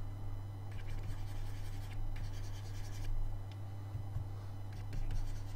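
Stylus of a drawing tablet scratching across its surface in short sketching strokes, then a few light taps in the second half, over a steady low hum.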